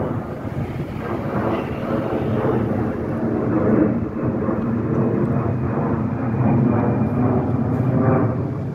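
Jet airliner's engines rumbling steadily as it climbs away overhead just after takeoff, the sound swelling and easing a little.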